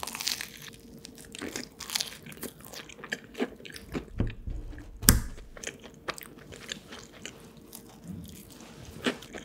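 A person biting and chewing crunchy bread close to the microphone, with irregular crunches and one louder crunch about five seconds in.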